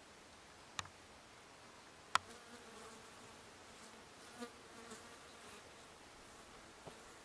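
Faint buzzing of flying insects around the perched bird, swelling now and then, with two sharp clicks about one and two seconds in, the second louder.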